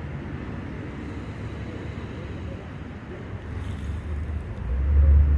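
Steady outdoor street ambience, a low hum of distant traffic. A loud low rumble comes in near the end.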